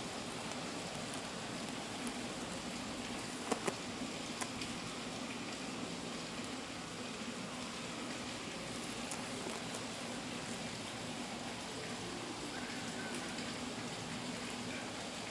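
Steady background hiss with a faint low hum, and a few soft clicks about three and a half to four and a half seconds in from the shoe being handled.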